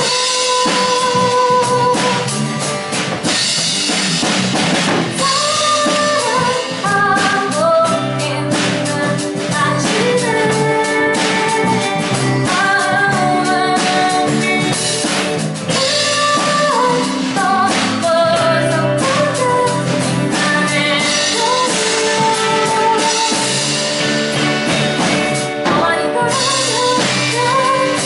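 Small band playing live: a woman sings the melody over acoustic guitar, red electric guitar, electric bass, keyboard and drum kit.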